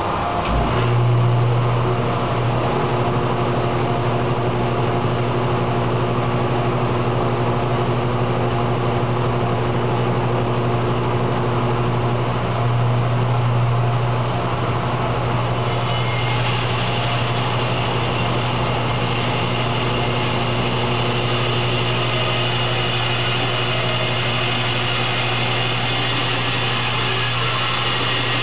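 Bandsaw switched on and running steadily with a strong motor hum, its blade ripping down the seam between two cedar boards held together to flatten cupped, rough-sawn lumber. The sound grows a little brighter and higher a little past halfway.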